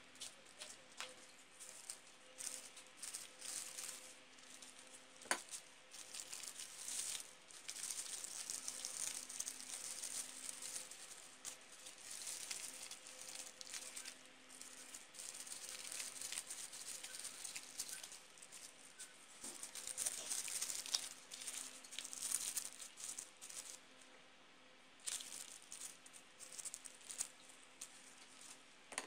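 Tissue paper rustling and crinkling in irregular bursts as hands crumple and shape the petals of a paper rose, with one sharp click about five seconds in and a faint steady hum underneath.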